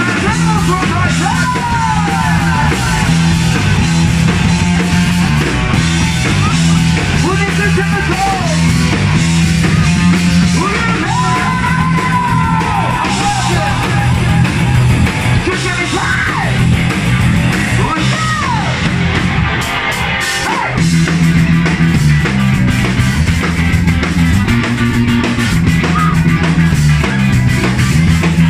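Ska-punk band playing live at full volume: shouted lead vocals over distorted guitar, bass and drums, with a short break about two-thirds of the way through before the band comes back in.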